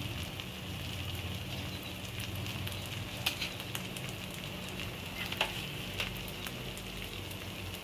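Semolina uttapam batter frying in a little oil on a nonstick pan over a medium flame: a steady sizzle with a few scattered crackles.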